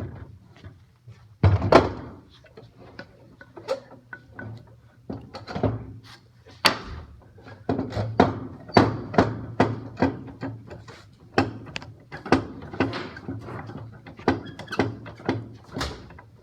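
A series of wooden knocks and thunks as a clamp is fitted and tightened to hold a piece of wood down on the drill press table. There is one loud knock about a second and a half in, then a quick run of about two knocks a second through the second half.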